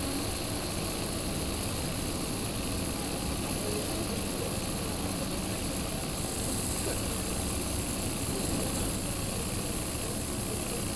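JR KiHa 40 diesel railcar heard from inside the car while running along the line: a steady diesel engine hum mixed with wheel and rail running noise, at an even level throughout.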